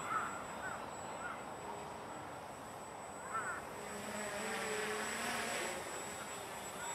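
Walkera Hoten-X quadcopter flying overhead, its motors and propellers giving a faint whine that swells about four to six seconds in as it comes closer. A few short chirps sound in the first second and again about three seconds in.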